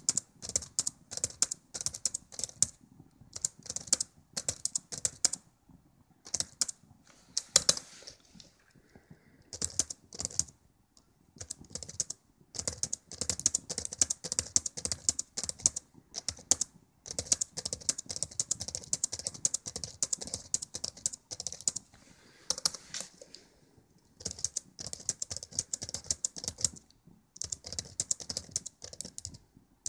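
Typing on a Dell Latitude E7440 laptop keyboard: rapid runs of key clicks, broken by brief pauses of about a second every few seconds, as the same short test word is typed over and over.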